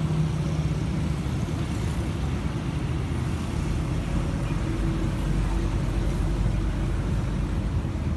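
Steady road traffic noise: a low rumble of passing cars, growing deeper and stronger from about halfway through.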